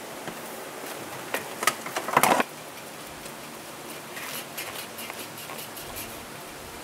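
Fried oyster noodles sizzling in a large steel wok with a steady hiss, and a scoop scraping and clattering against the wok, loudest a little after two seconds in, then a few lighter scrapes.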